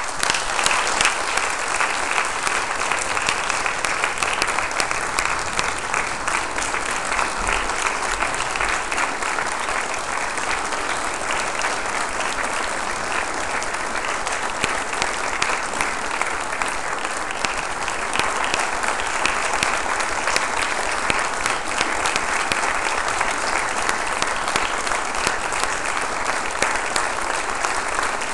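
Congregation applauding: a long, steady round of clapping that starts suddenly and keeps up without a break.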